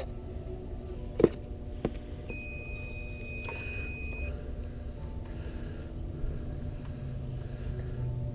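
Two sharp clicks, then a steady, high electronic beep held for about two seconds.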